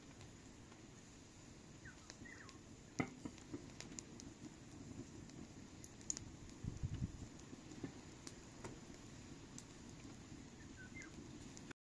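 Faint scattered taps and clicks of a thin wooden rolling pin rolling out flatbread dough on a flour-dusted metal tray. There is one sharper click about three seconds in and a few dull knocks around seven seconds in.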